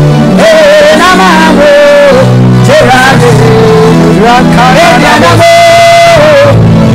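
A man singing a worship song in a strong voice, with a long held note about two-thirds of the way through, over sustained chords on an electronic keyboard.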